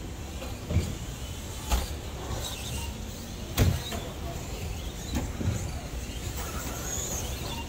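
Electric RC stadium trucks running: the faint whine of their electric motors rising and falling over a steady hiss, with several sharp thuds, the loudest about three and a half seconds in.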